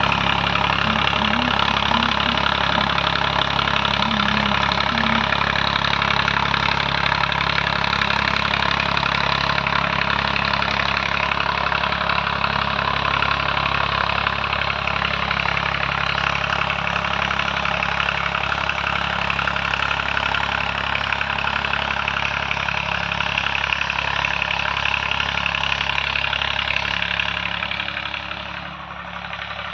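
Swaraj 744 tractor's three-cylinder diesel engine running steadily through an Eicher silencer. The level dips briefly near the end.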